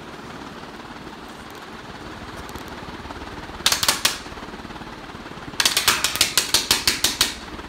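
A Westinghouse 56-inch metal-bladed industrial ceiling fan running on high with a steady rush of air. A piece of paper held into it rattles in two runs of rapid, sharp slaps: a short burst of about four near the middle, then about a dozen at roughly seven a second near the end.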